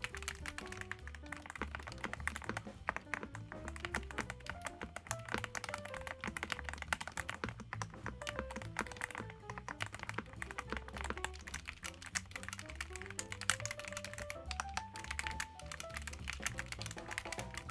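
Continuous fast typing on a YUNZII gasket-mount mechanical keyboard with PBT keycaps, dense keystroke clicks, over background music with a stepping melody and steady bass.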